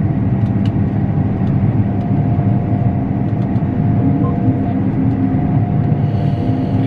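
Combine harvester running steadily while cutting wheat: a continuous low drone with a faint steady whine above it.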